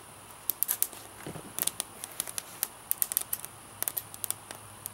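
Dry split wood crackling and popping as it burns in a homemade rocket stove, irregular sharp pops several times a second. The fire is freshly lit and still getting going.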